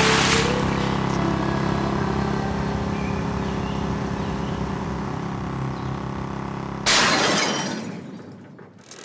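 A steady low drone with several held tones, then a sudden loud crash about seven seconds in that fades away over a second or so.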